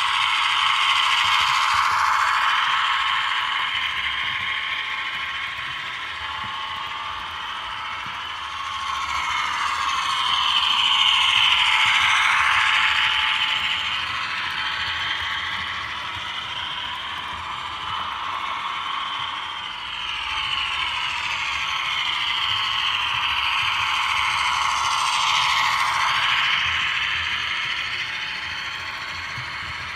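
Model train of a Victorian Railways T-class diesel and passenger carriages running around the layout: a steady whirring rattle of motor and wheels on the track that swells louder three times as the train passes close, about every twelve seconds.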